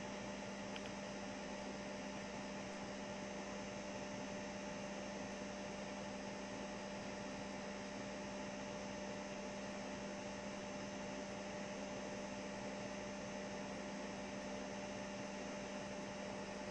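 Steady electrical hum over a constant hiss, unchanging throughout.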